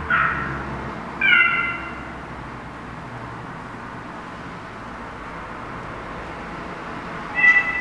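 Short high-pitched calls played back from small speakers as they are touched: one falling in pitch at the start, another about a second in, and a third near the end.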